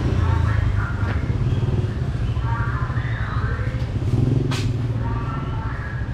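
Motorbike traffic running steadily close by, a low engine rumble, with a single sharp click about four and a half seconds in.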